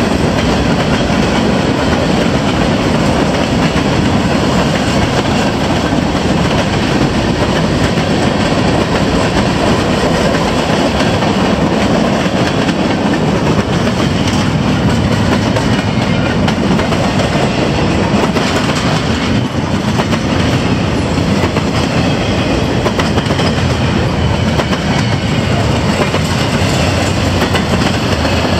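Freight train cars rolling past close by: boxcars and then empty intermodal well cars make a loud, steady rush of wheel-on-rail noise with clickety-clack.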